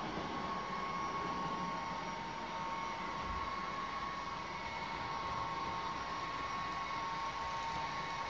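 Model railway running: a steady whirring hiss with a constant high whine, from a model train on the layout.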